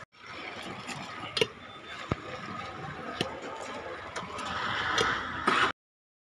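Street background noise with a few sharp clicks, then a rising hiss about four seconds in as juice is poured in a long stream from one steel tumbler into another. The sound cuts off abruptly to silence near the end.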